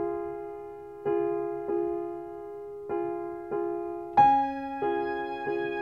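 Instrumental keyboard music with an electric-piano-like sound: chords ring and fade, struck in pairs about every two seconds. About four seconds in, a louder, fuller chord with higher notes comes in.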